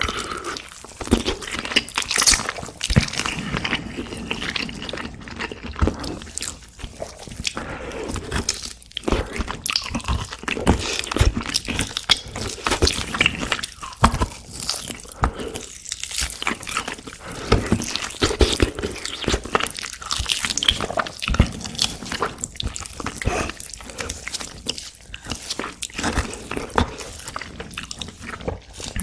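Close-miked biting and chewing: teeth gnawing braised pork back rib meat off the bone, with dense, irregular crackles and mouth sounds throughout.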